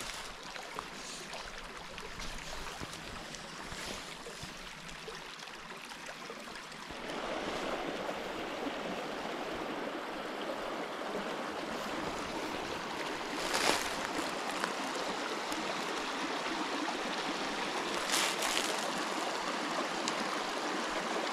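Small rocky mountain creek running over rocks and riffles, a steady rushing that grows louder about seven seconds in. A couple of brief knocks or rustles come on top of it later.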